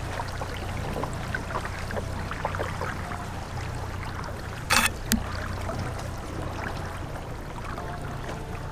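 Water trickling and lapping along the hull of a boat moving slowly through shallow water, over a steady low motor hum. A sharp knock, the loudest sound, comes just under five seconds in, with a smaller one right after.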